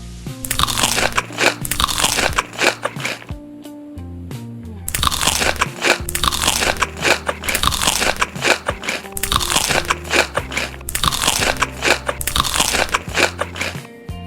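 Crunchy food being bitten and chewed close to the microphone, a dense run of crunches with a short pause about four seconds in.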